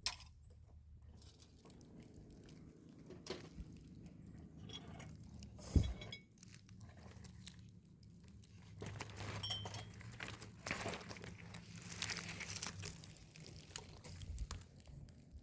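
Rustling, crunching and light knocking of things being handled, with one sharp thump about six seconds in and busier rustling and clattering in the second half.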